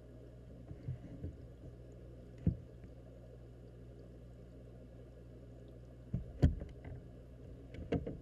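Steady low underwater hum of aquarium equipment with bubbling air stones, muffled through a waterproof camera housing. Short sharp knocks cut in about a second in, again a little later, twice close together past the middle (the loudest), and near the end.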